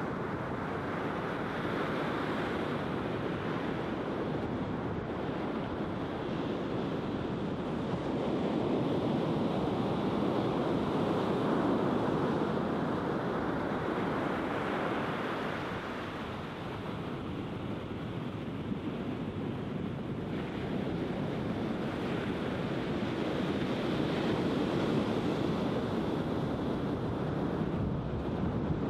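Sea surf breaking and washing up a flat sandy beach, a steady rush of water that rises and falls in slow surges.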